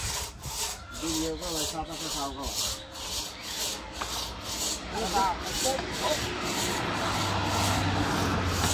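Rhythmic rasping of wood, about three strokes a second, from work at the sawmill, with brief faint voices. A low hum comes in about seven seconds in.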